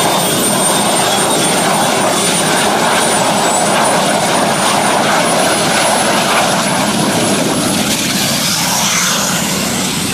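Gas turbine helicopter engine fitted in the back of a minivan, running loud and steady with a jet-like rush and a thin high whine. Near the end a whine rises in pitch as the van pulls away.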